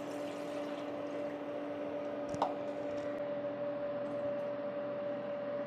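Water poured from a plastic jug into a cooking pot, splashing as it fills, with a single knock about two and a half seconds in. A steady low hum runs underneath.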